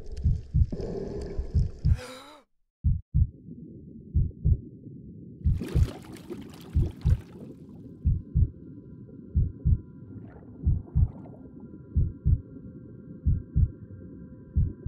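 Slow heartbeat, double thumps repeating about every 1.3 seconds (roughly 45 beats a minute), over a steady low underwater rumble. A burst of hiss comes about six seconds in, and from halfway on a faint steady high tone sounds under the beats.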